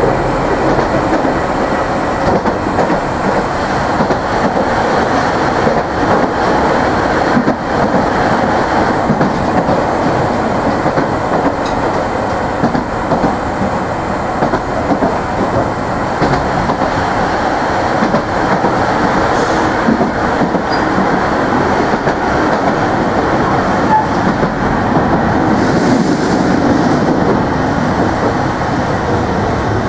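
Hiroshima Electric Railway 3700 series resistor-controlled tram running along the line, heard from inside the car: a steady rumble of wheels on rail, with the traction motors hardly audible.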